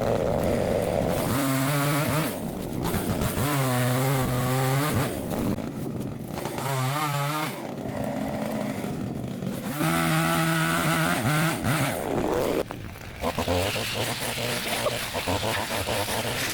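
Small petrol engine of a handheld garden power tool, revved up to full speed about three times and dropping back between the bursts while cutting overgrowth.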